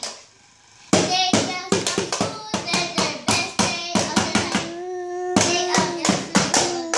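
A child singing while beating drumsticks on a cardboard box as a makeshift drum, with quick sharp taps several times a second. It starts after a short pause about a second in, and a long sung note is held over the taps in the second half.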